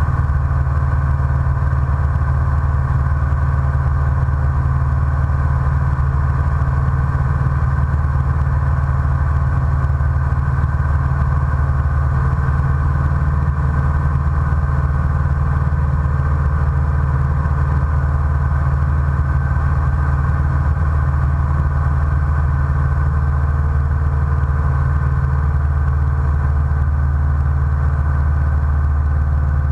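Light aircraft's piston engine droning steadily, heard from inside the cockpit under the canopy, with a deep even hum and no change in pitch.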